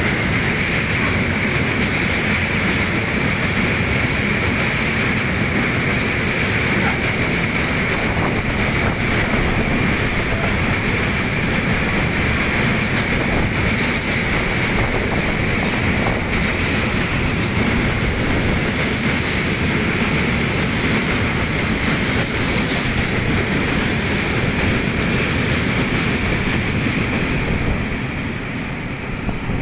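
Freight train of tank wagons rolling past close by at speed: a loud, steady rumble and rattle of wheels over the rails, with a steady high-pitched tone held over it. It eases off near the end as the last wagon passes.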